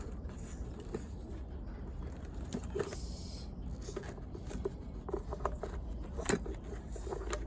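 Hand-handling noises of a hair dryer cord being worked on after taping: scattered light clicks and scrapes, with one sharper click about six seconds in, over a steady low hum.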